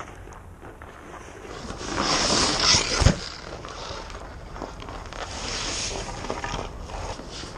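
Skate blades and goalie pads scraping on outdoor-rink ice right in front of the net. The scrape builds for about a second and a half into one hard knock about three seconds in, and a second scrape follows a couple of seconds later.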